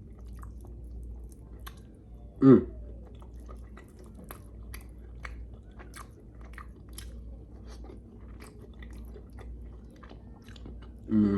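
A person chewing food with many small wet mouth clicks and smacks, over a low steady hum. About two and a half seconds in there is one short voiced hum that falls in pitch.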